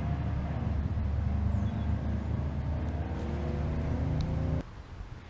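An engine running steadily with a low, even hum, which cuts off abruptly near the end.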